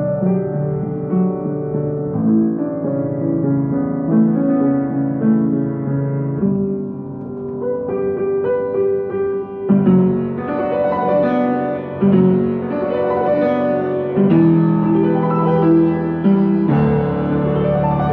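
Piano playing a slow passage of sustained chords and melody notes, growing fuller and slightly louder about ten seconds in.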